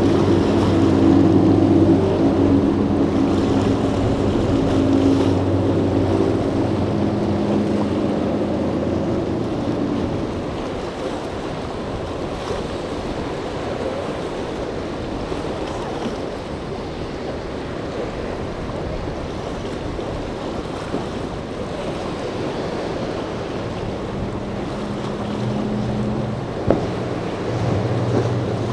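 A boat's Mercury outboard motor runs past and fades away over the first ten seconds or so. Wind and rough, choppy water follow. Another boat's outboard engine comes in again near the end.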